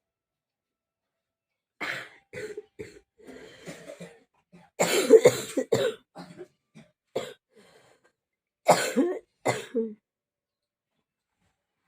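A person coughing in repeated fits: a run of short coughs about two seconds in, the hardest fit about five seconds in, and two more loud coughs near the end. It is the cough of a bad cold.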